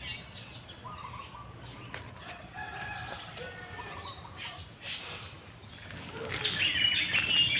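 Birds calling: scattered short chirps at first, then a loud, dense chatter of high chirps from about six seconds in.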